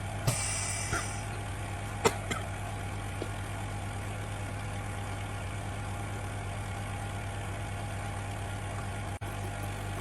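Steady low hum of a screen laminator's 4-litre vacuum pump running as it draws the vacuum, with a short hiss of air near the start and a couple of sharp clicks about two seconds in.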